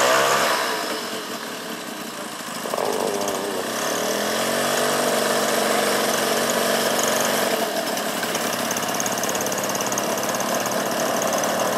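Engine of a giant-scale RC Bücker Jungmeister biplane model running at low throttle while it taxis. It eases off about a second in, picks up again near three seconds, then runs at a steady idle.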